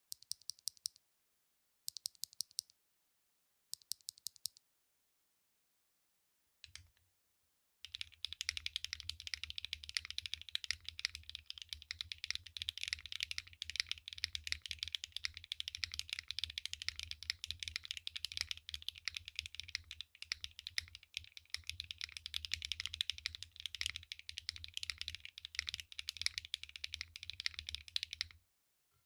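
Mechanical keyboard, a Mode Tempo with HMX Lotus switches in a POM plate, being typed on. Three short bursts of keystrokes come in the first few seconds. From about eight seconds in, fast continuous typing runs until it stops just before the end.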